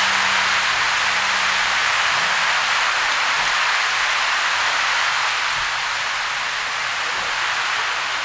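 Audience applauding steadily, a dense even clapping. A held musical chord fades out under it in the first couple of seconds.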